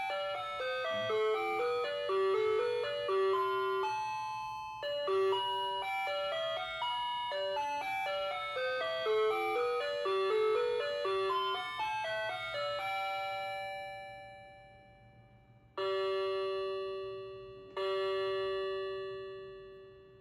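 Ajanta quartz wall clock's electronic hourly chime: a bell-like tune plays in two phrases and fades out, then the clock strikes twice, about two seconds apart, each strike ringing away. Two strikes at 5 o'clock: the strike count is out of step with the hour.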